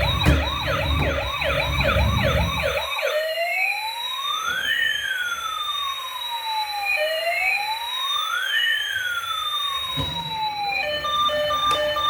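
Electronic siren: a fast warbling yelp for about the first three seconds, then a slow wail in which one tone rises while another falls, repeating about every four seconds. Near the end it gives way to a tune of steady beeping notes.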